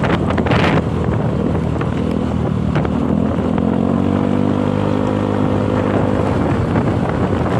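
Motorcycle engine running at a steady riding speed, with wind buffeting the microphone. The engine's note comes through most clearly in the middle, with a few brief knocks or gusts near the start.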